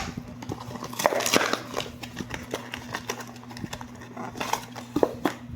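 Packaging being handled: a series of light clicks and rustles, the sharpest about a second in and again near five seconds, over a steady low hum.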